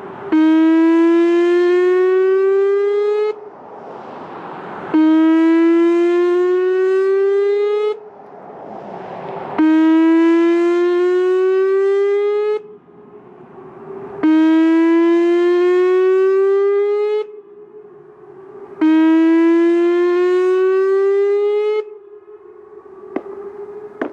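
Whelen 2810 electronic warning siren sounding its whoop tone: five loud rising whoops, each about three seconds long and cutting off sharply, repeating about every four and a half seconds.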